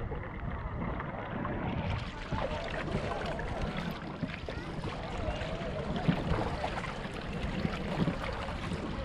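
Water splashing and lapping against the hull and bamboo outriggers of a small outrigger boat moving over calm sea, in small irregular splashes.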